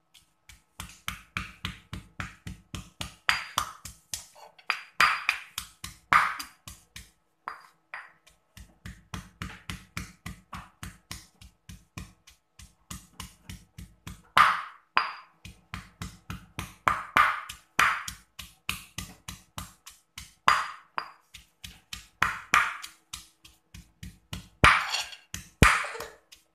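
Stone pestle pounding shallots, garlic, chillies, dried anchovies and shrimp paste in a granite mortar: steady rhythmic strikes, about three a second, some harder ones with a brief ringing.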